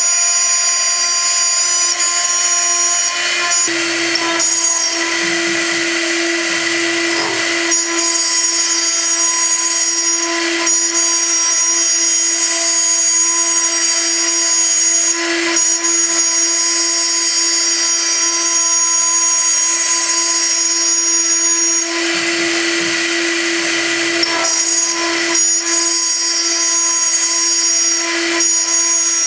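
The high-frequency spindle of a CNC gantry milling machine runs while it mills aluminium: a steady high whine over a cutting hiss. The sound shifts briefly every few seconds, and a lower stepped buzz comes in twice.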